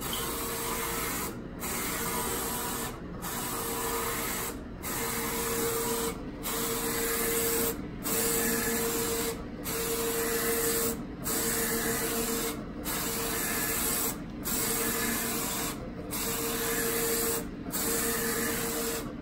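Roland FJ-50 wide-format inkjet printer printing, its print-head carriage sweeping back and forth across the media. Each pass is a steady mechanical whir with a motor hum, broken by a brief lull as the carriage turns around, about every second and a half.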